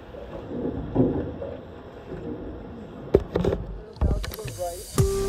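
Muffled activity on a small boat's deck: a low murmur, a few sharp knocks about three seconds in, then a rushing noise. Background music comes in near the end.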